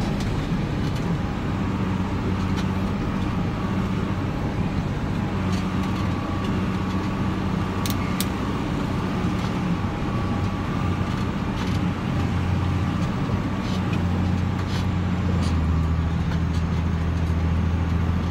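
Engine hum and road noise inside the cab of a moving vehicle, a steady low drone that deepens and grows a little louder about three-quarters of the way through, with a few faint clicks.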